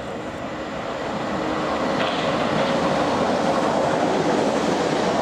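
A train running into the station, its noise growing steadily louder over the first few seconds and then holding.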